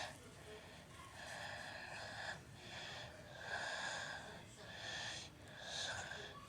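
A person breathing audibly: a series of about five soft, breathy swells, roughly one a second.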